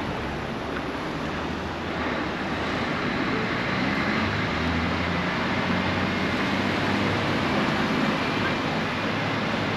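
Town street traffic: car engines running and moving along the road as a steady mixed rumble, which grows a little louder about two seconds in.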